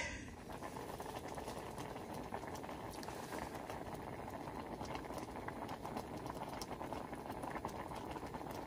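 Liquid boiling steadily in a pot, an even, dense bubbling.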